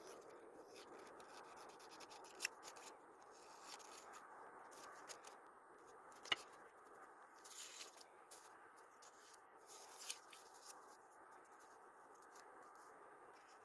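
Faint desk-crafting sounds of paper and stickers being handled: soft rubbing and scratchy swishes with a few small clicks, the sharpest about six seconds in.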